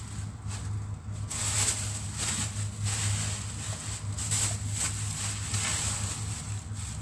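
Rustling and handling noises, irregular and scratchy, as things are moved about on a kitchen counter, over a steady low hum.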